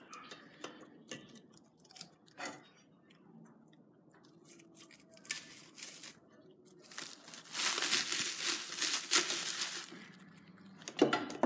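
Clear plastic shrink wrap being cut and torn away from an engine block: scattered crinkles and snips at first, a brief rip about five seconds in, then a long stretch of loud tearing and rustling from about seven to ten seconds in.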